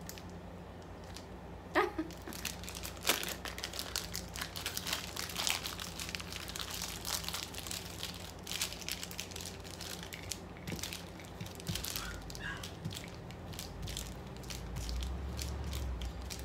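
Crinkling plastic wrapping of a cheese package being handled, with many small clicks and crackles.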